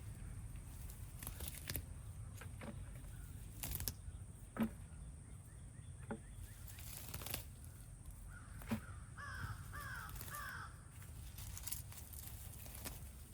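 Scattered knocks and rustles of potato foliage being pulled up by hand from a garden bed. About nine seconds in, a bird calls four times in quick notes that fall in pitch.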